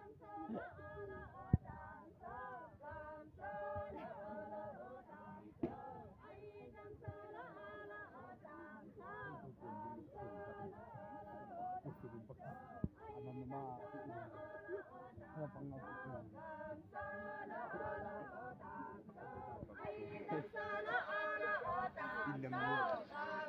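A group of voices, mostly women, singing a folk song together while dancing in a circle; the singing grows louder and fuller in the last few seconds. A single sharp click stands out about one and a half seconds in.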